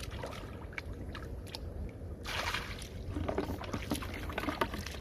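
Shallow muddy water splashing and sloshing as a wading person's hands and feet move through it, with a louder splash about two and a half seconds in and a few smaller splashes after.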